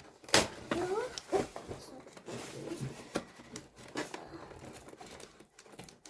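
Toy packaging being handled and pulled open: plastic and cardboard crinkling and tearing, with sharp clicks and rustles, the loudest a sharp snap just after the start.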